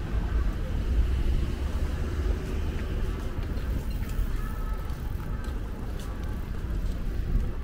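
City street ambience: a steady low rumble of road traffic going by.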